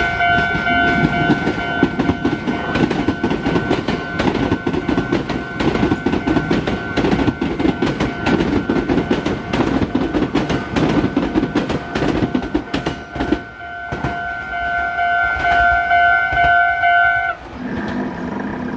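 Japanese level-crossing alarm ringing steadily as a Meitetsu Blue μSKY electric train rolls slowly over the crossing, its wheels clattering over the rail joints. The clatter fades about thirteen seconds in, and the alarm cuts off suddenly about seventeen seconds in.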